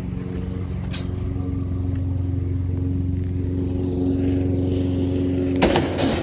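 A vehicle engine running steadily, with a single knock about a second in and a clatter of knocks near the end.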